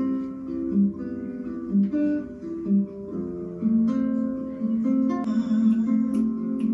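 Acoustic guitar playing slow, held notes, a new note plucked about once a second, with brighter strums coming in about five seconds in.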